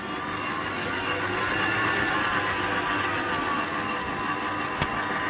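Electric stand mixer running, its dough hook kneading a thick whole-grain seed dough in a glass bowl: a steady motor whine with the churn of the dough, growing louder over the first couple of seconds. A single sharp click near the end.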